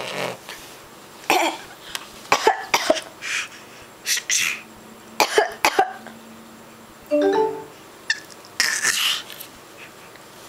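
A baby making a string of short, deliberate put-on coughs, one after another with pauses between, as a trick. A brief voiced sound from the baby comes about seven seconds in.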